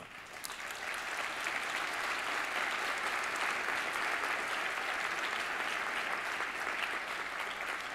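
Audience applauding, building up over the first second or so and then holding steady.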